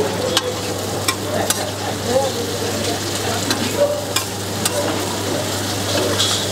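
Tawa chicken frying in oil on a flat griddle: a steady sizzle, with a metal spatula repeatedly scraping and clicking against the tawa as the masala-coated pieces are stirred.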